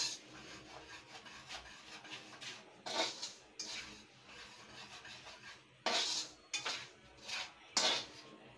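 Dry semolina being pushed and turned by hand in a thin metal karahi: a gritty rubbing and scraping in irregular strokes, with louder sweeps about three, six and eight seconds in.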